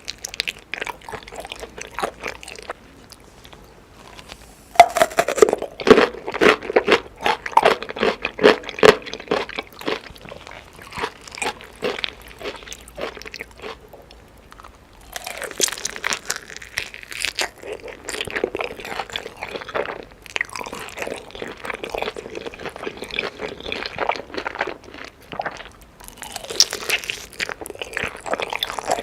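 Someone biting into and chewing crispy chicken: crackly crunching in three loud spells, about five seconds in, again mid-way and near the end, with quieter chewing between.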